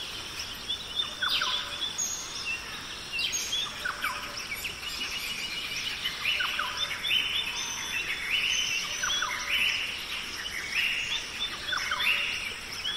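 Birdsong ambience: many short chirps and calls from several birds, repeating and overlapping over a faint steady outdoor hiss.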